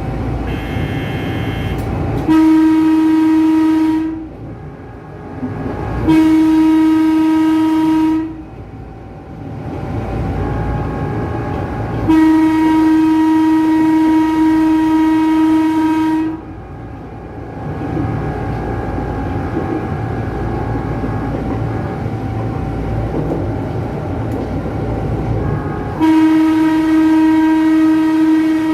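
Electric horn of a Tokyu 8500-series electric commuter train sounded four times, each a steady single-pitched blast: two of about two seconds, a longer one of about four seconds, and a last one starting near the end. Between the blasts the train's running rumble continues.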